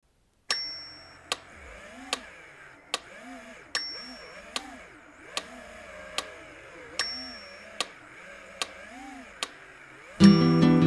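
Music intro: a clock-like tick about every 0.8 seconds, with a short high ding on every fourth tick, over a soft wavering low tone. A loud guitar music track comes in near the end.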